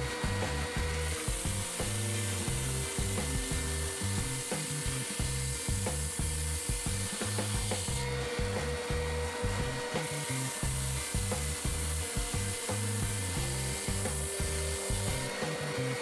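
Triton TSPST450 oscillating spindle and belt sander running in belt mode, with a wooden board pressed against the sanding belt. It grinds the wood in two long passes of several seconds each, with a short break between them, over the steady hum of the motor.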